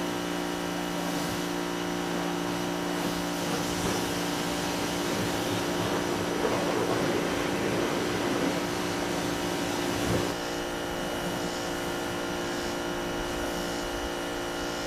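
Electric pressure washer running steadily: a constant motor-and-pump hum with a hiss of water spray over it.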